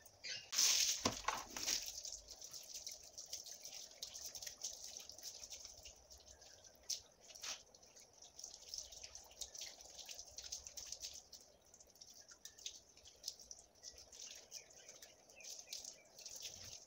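Water from a garden hose splashing over a wet dog's coat and dripping and pattering onto a concrete floor, with a louder burst of splashing about a second in.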